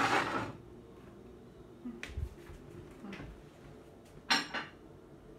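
Scattered brief kitchen handling noises around a stovetop and frying pan: a short rush of noise at the start, a couple of soft low knocks, and a louder, sharper noise a little past four seconds in.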